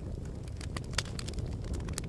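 Wood fire crackling: a few scattered sharp pops, the loudest about halfway through, over a steady low wind rumble.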